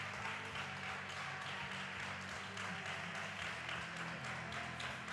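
Steady background noise of a shooting hall: a soft murmur of waiting spectators over a low hum, with faint scattered clicks.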